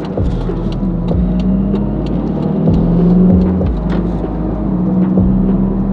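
Small car driving along, heard from inside the cabin: engine and road noise make a steady low drone.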